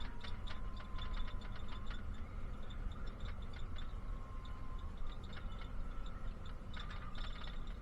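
Inside a moving bus: steady engine and road rumble, with clusters of light, irregular clicking rattles.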